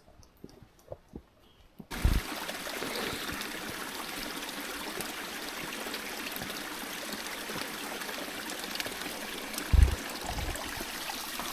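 Stream water running in a steady rush that starts abruptly about two seconds in, after near-quiet with a few faint clicks. Two low thumps sound over it, one just as it starts and one near the end.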